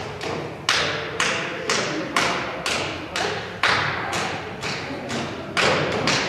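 A steady beat of sharp thuds, about two a second, each ringing on briefly in the hall's echo, keeping time for a dance.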